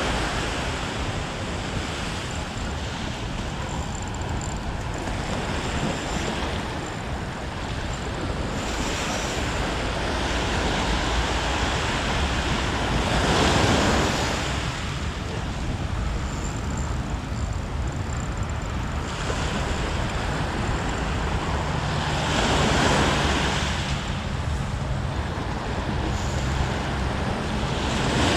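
Sea waves breaking and washing on the shore, swelling louder about halfway through and twice more later on, with wind buffeting the microphone.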